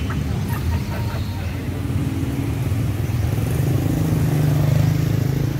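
Street traffic with vehicle engines running. One passes close: its low engine hum swells about four seconds in and drops off near the end.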